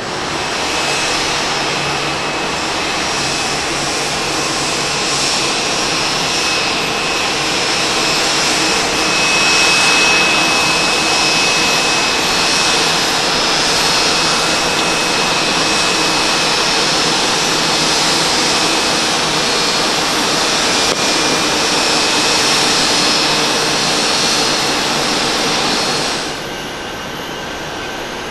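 Twin jet engines of an All Nippon Airways Boeing 777-300 at takeoff thrust as it lifts off and climbs away: a loud, steady jet noise with a high whine. About 26 seconds in it cuts off suddenly, leaving quieter jet noise from an ANA Boeing 787-8 taxiing.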